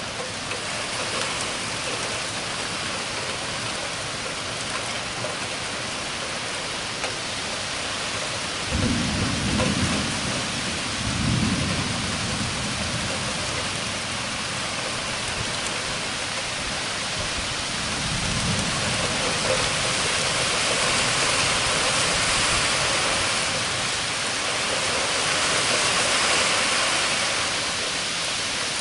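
Thunderstorm: steady heavy rain, with a long rumble of thunder about a third of the way in and a fainter rumble past the middle, the rain swelling toward the end.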